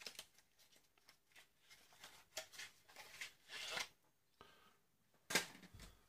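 Small cardboard box being opened by hand and a plastic breadboard slid out: light scattered scraping and rustling of cardboard, with one louder knock near the end.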